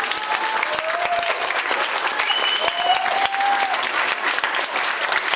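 Audience applauding at the end of a live folk-band song, with dense clapping throughout.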